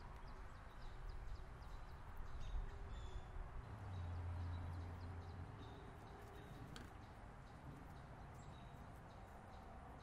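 Faint outdoor ambience with scattered bird chirps, and a low steady hum for a second or two about four seconds in.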